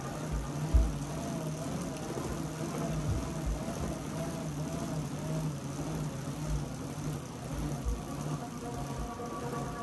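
Bicycle tyres running on Tacx rollers: a steady low hum that wavers in a repeating rhythm, with occasional low thumps.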